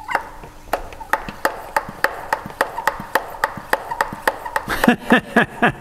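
Hand pump of a garden pressure-sprayer pot being worked to pressurise it, giving a steady clicking of about three strokes a second, with a few short falling squeaks near the end.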